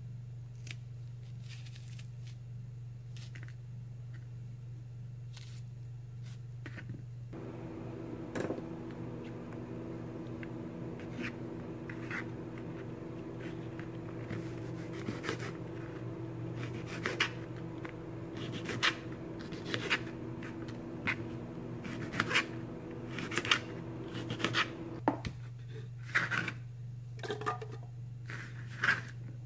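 Knife slicing bitter gourd on a cutting board: a run of sharp cutting clicks, sparse at first and coming quicker and louder in the second half, over a steady low hum.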